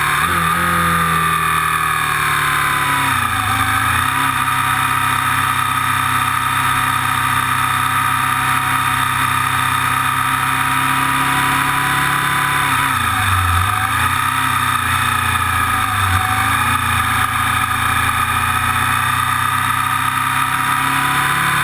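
Aprilia Tuono Factory motorcycle engine running hard on track, heard from an onboard camera on the bike. The revs fall under braking to a low point about three and a half seconds in and dip again around thirteen and sixteen seconds, climbing back each time as it accelerates.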